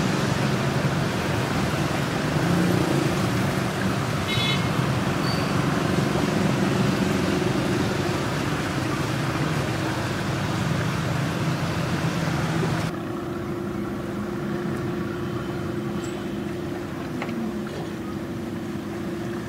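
Steady low engine drone under a rushing noise. About 13 seconds in it cuts abruptly to a quieter, steadier hum.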